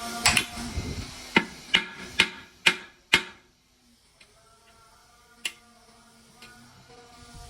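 A series of sharp knocks or taps, about six in the first three seconds, then quieter with a single knock a little past halfway, over a faint steady hum.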